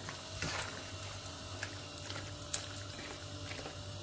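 Penne in a creamy tomato sauce being stirred with a spoon in a hot pan: wet squishing of the sauce, with scattered light clicks of the spoon against the pan.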